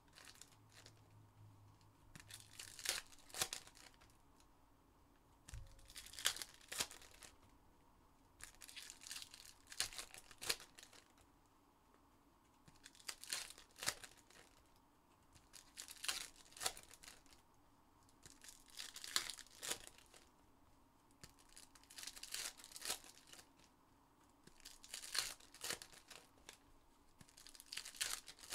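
Foil trading-card packs being torn open one after another, the wrappers crinkling and tearing in a short burst about every three seconds.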